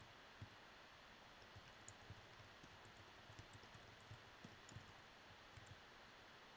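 Faint, irregular clicks and soft taps of typing on a keyboard, over a quiet room hiss.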